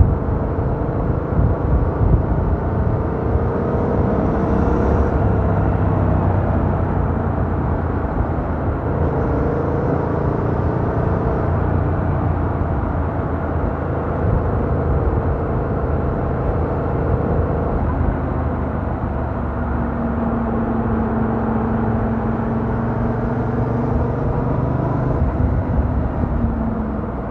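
A Yamaha MT-07's 689 cc parallel-twin engine with its stock exhaust, running steadily on the move over wind and road rumble. Its pitch holds for a few seconds at a time, then shifts with throttle and gear changes. The sound is picked up by a microphone in the rider's jacket pocket.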